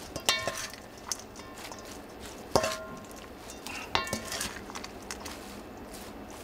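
Salad being tossed in a large stainless steel bowl with a metal serving spoon. The leaves rustle, and the spoon strikes the bowl with a ringing clink about three times.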